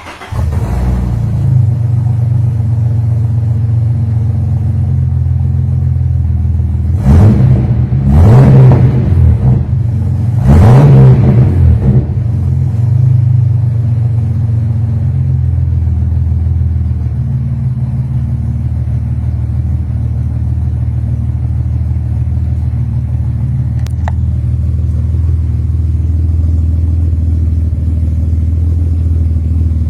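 Chevrolet Omega engine catching and settling into a steady idle, heard through its sport exhaust tip. The throttle is blipped three times between about seven and eleven seconds in, the exhaust note rising and falling each time, before it drops back to idle.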